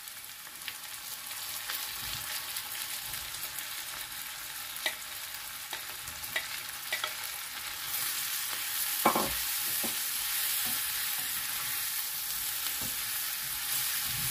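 Sliced mushrooms sizzling in hot oil and butter in a frying pan, stirred with a spatula that clicks and scrapes against the pan. The sizzle grows louder about halfway through, and soon after comes the loudest sound, a single knock against the pan.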